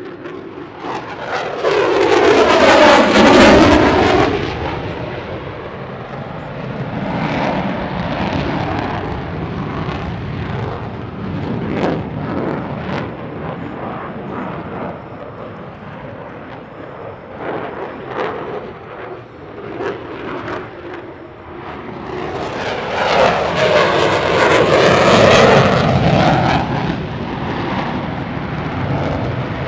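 F-22 Raptor's twin jet engines during low display passes: two loud swells, about two seconds in and again near the end, each with a sweeping, whooshing tone, and a rumbling, crackling jet noise between them.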